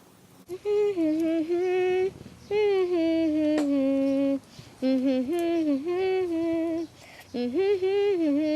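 A woman humming a tune without words in several held, gliding phrases, with short breaths between them.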